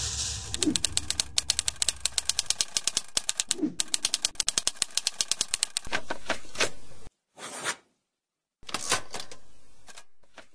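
Typewriter keys clacking in a fast, even run of strokes for about six seconds, as text is typed out. A few more separate strokes follow. After a short pause, a last few clacks come near the end.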